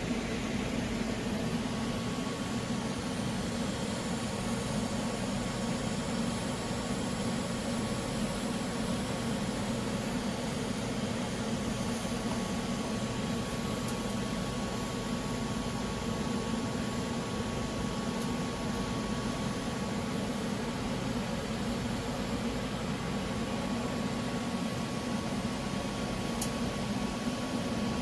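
TIG welding a stainless-steel exhaust pipe joint: a steady hiss and hum from the arc and welder, with a faint steady whine above it.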